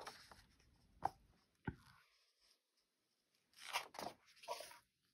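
A picture-book page being turned by hand: a couple of faint taps, then a short rustle of paper as the page turns over, near the end.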